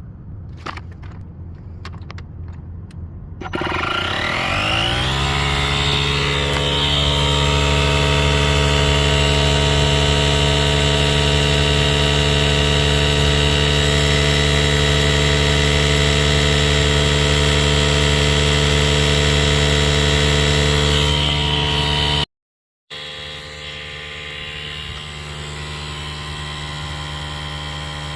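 DeWalt DCC020IB 20 V cordless inflator starting up after a few clicks, its pitch rising for a couple of seconds, then running with a steady buzzing hum as it pumps up a trailer tire toward 95–96 psi. Near the end the sound breaks off abruptly, then a quieter steady drone carries on.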